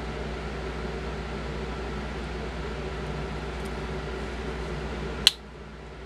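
Steady background hum, then about five seconds in a single sharp snap of the Victorinox Harvester X's woodsaw blade closing against its backspring.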